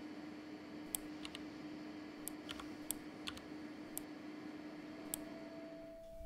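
Sparse, irregular clicks of a computer mouse and keyboard being worked, over a steady low hum that stops near the end.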